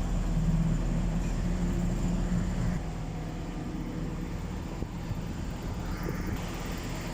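Mercedes-Benz Actros truck's diesel engine idling steadily, a low even hum that drops a little in level about three seconds in. A new fuel pump has just been fitted to cure its hard starting.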